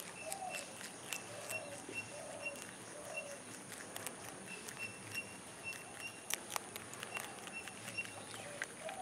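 White rabbits munching crisp water spinach (kankun) stems and leaves, a run of irregular little crunches and clicks. A faint high chirp repeats about twice a second in the background.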